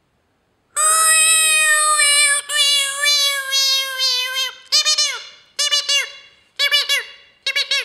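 A person's high-pitched falsetto voice: after a short silence, one long held wail that slides slightly down, then four short rising-and-falling yelps.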